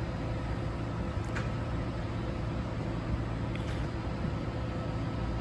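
Boat engine running steadily at low speed: an even low rumble with a faint steady whine over it.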